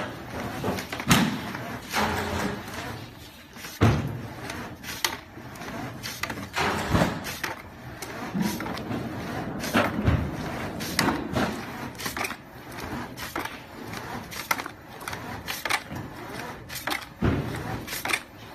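Semi-automatic carton box gluing machine running while corrugated cardboard blanks are fed through by hand, with irregular knocks, thuds and slaps of board.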